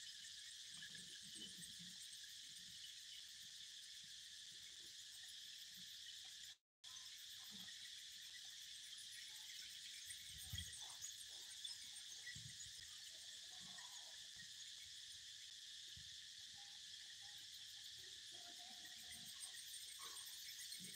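Faint, steady high-pitched chorus of insects chirring in the surrounding woodland, with the sound cutting out for a moment about seven seconds in.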